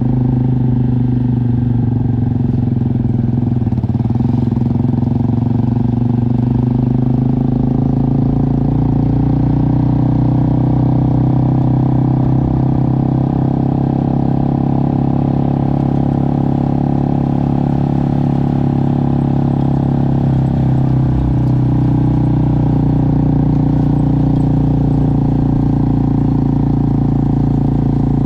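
Motorcycle engine running steadily while riding, holding an even engine note that shifts slightly in pitch now and then.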